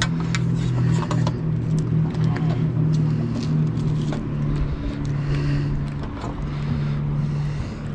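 Steady drone of a boat engine running, its pitch wavering slightly, with a few sharp clicks and knocks in the first couple of seconds.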